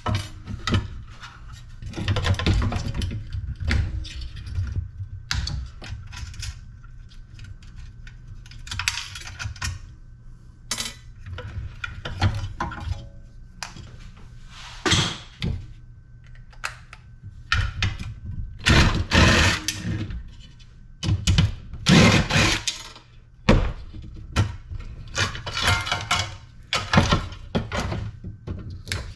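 Irregular metal knocks, clunks and scraping as a cast-aluminum LED light fixture is worked apart by hand, with several longer, louder rasping stretches in the second half.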